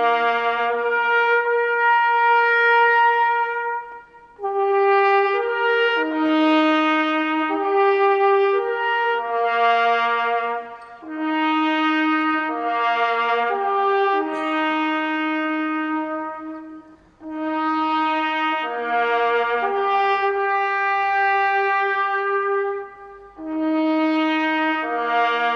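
Trumpet playing a slow melody of long held notes, in phrases of about four to six seconds with short breaks between them.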